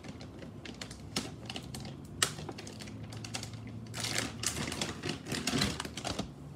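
Irregular rapid clicks and crackles from handling a bubble pop-it fidget toy, with one sharp click about two seconds in and a denser run of clicking near the end.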